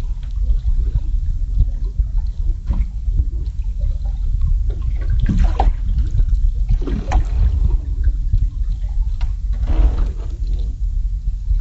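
Water sloshing and gurgling around a small fishing boat in a strong current, with irregular splashes over a steady low rumble.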